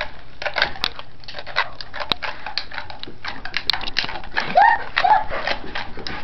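Pit bull chewing and gnawing on a chew stick: a run of irregular sharp clicks and taps of teeth working the stick. A brief high cry comes about two-thirds of the way in.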